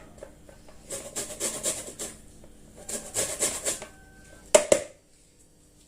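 Orange peel being grated on a hand grater: two runs of quick rasping strokes scraping off the thin outer zest, followed by two sharp knocks about four and a half seconds in.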